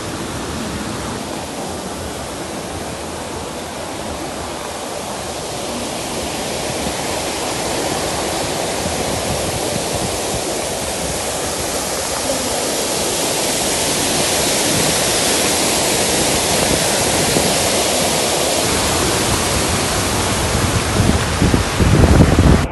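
Loud, steady rushing noise that slowly grows louder, with a few heavier low rumbles near the end.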